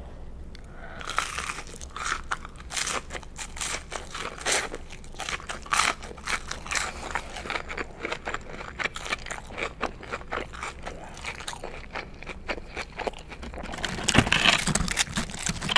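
Close-miked biting and crunchy chewing of a breaded, sauce-glazed Spicy Chicken McNugget: a bite about a second in, then a steady run of crisp crunches. Near the end there is a louder burst of handling as a hand reaches into the cardboard nugget box.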